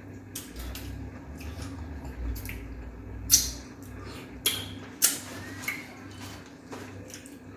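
Wet mukbang eating sounds: fufu and slimy ogbono soup being squished and eaten, with several sharp wet mouth smacks over a steady low hum.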